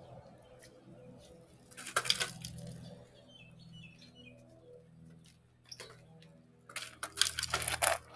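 A bicycle ridden at a ramp jump: a short clattering burst about two seconds in, then a longer spell of louder rattling and scraping near the end as the bike comes up close.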